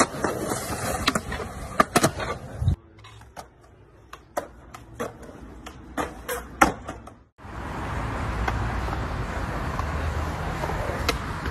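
Skateboard on concrete: a run of sharp clacks and knocks as the board pops and lands and strikes ledges over the first seven seconds, then the steady rolling noise of skateboard wheels on concrete.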